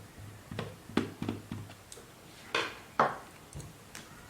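A string of sharp clicks and knocks as the plastic parts of a Lenovo E470 laptop are handled and pressed back into place during reassembly; the two loudest come about two and a half and three seconds in.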